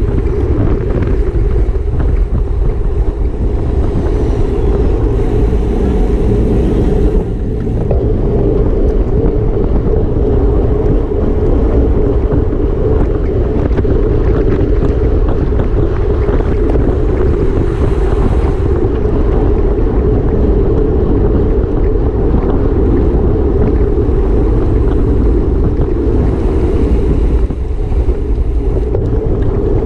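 Wind rushing over the microphone of a camera on a racing bicycle at speed: a loud, steady rumble with no let-up, dipping only briefly twice.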